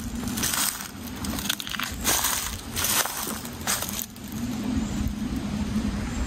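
Footsteps crunching on dry needle litter and dead twigs on a woodland floor, a crisp crunch at each step, the steps thinning out after about four seconds.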